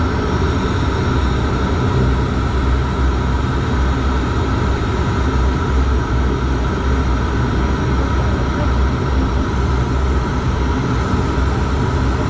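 Turboprop airliner's engine and six-bladed propeller running at taxi power, heard inside the cabin by the window: a loud, steady drone with a low throb and a few steady higher tones.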